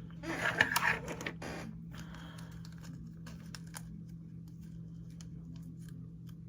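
Slime being handled and pressed: a short sticky rustling burst near the start, then scattered small clicks and pops over a steady low hum.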